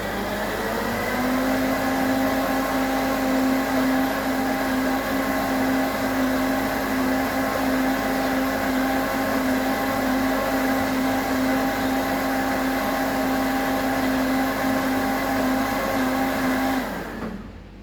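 Countertop blender motor running while blending a fruit smoothie of orange juice, frozen cherries, banana and peach. It speeds up to a higher steady pitch in the first second or two, runs steadily, then switches off and winds down near the end.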